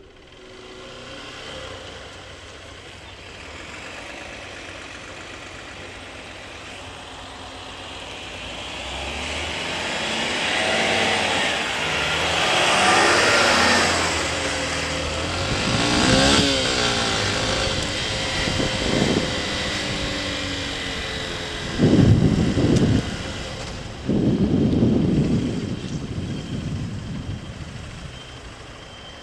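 Motorcycle riding in traffic, heard through a helmet-mounted camera: engine and wind noise swelling and easing, with vehicles passing close by and two short loud bursts about three quarters of the way through.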